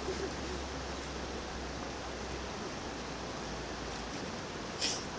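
Steady rush of flowing spring water, with one brief sharp click near the end.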